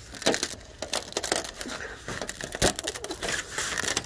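Phone microphone rubbing against hair and clothing: a dense, irregular crackling and rustling handling noise.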